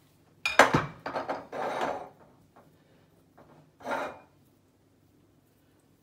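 Handling sounds from kneading chapati (roti) dough in a ceramic bowl: a sharp, loud knock about half a second in, then a second or so of noisy handling, and another short burst near four seconds.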